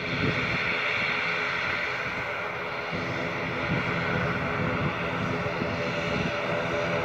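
Twin Pratt & Whitney PW127M turboprop engines of an ATR 72-600 running with a steady droning hum while the aircraft turns and lines up on the runway.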